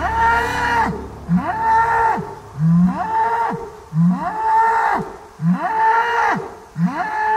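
Black bull bellowing over and over, about six calls a second or so apart, each rising and then falling in pitch.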